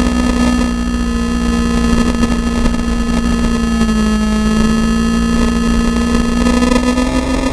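Onboard recording of a racing vehicle's engine at high, nearly steady revs along a straight, under heavy low wind and road rumble.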